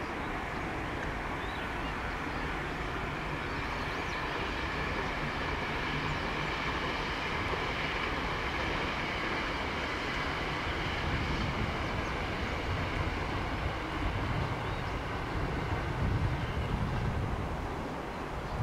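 JR 223 series electric train approaching on elevated track: a steady running rumble that grows louder over the last few seconds as it nears.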